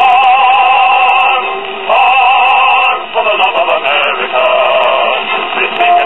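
A World War II era 78 rpm record playing: a band with a vocal group singing with heavy vibrato. It is broadcast by the record player's small AM transmitter, which has just had every capacitor and resistor replaced, and is heard through a Zenith Royal Ten transistor radio.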